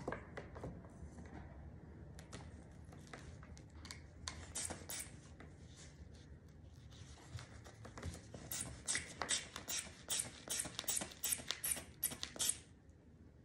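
Rubber inflation bulb of a manual blood-pressure cuff being squeezed over and over, a rapid run of about three or four short strokes a second in the last few seconds. Before that, softer scattered clicks and rubs of the cuff and stethoscope being handled.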